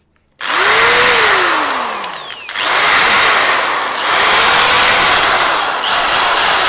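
XU1 500W 13mm hammer drill running free, loud, squeezed up to speed about three times in a row: the motor whine climbs, then sags and falls as the trigger eases off before the next run.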